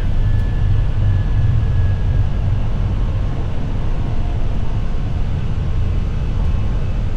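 Steady low rumble on the Airbus A320 flight deck during the initial climb at takeoff thrust: airflow and engine noise from the CFM56-5B4 engines.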